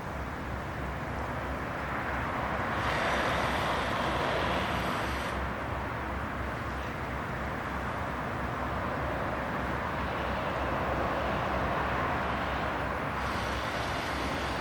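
Outdoor traffic noise: a steady rumble with two louder passes, one about three seconds in and another near the end.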